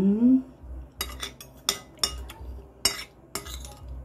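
Metal spoons scraping and clinking against glass plates as people eat, in a run of short, sharp clinks and scrapes from about a second in. It opens with a short rising hum from a voice.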